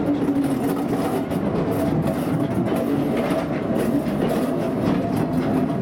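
Coaches of a train hauled by a Great Western Railway pannier tank steam locomotive rolling past close by, a steady rumble of wheels on the rails.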